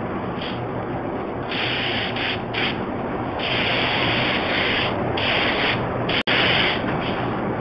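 Gravity-feed compressed-air spray gun hissing in several bursts of a second or so as the trigger is pulled, spraying a tinted finish coat, over a steady background noise with a low hum. The sound cuts out for an instant about six seconds in.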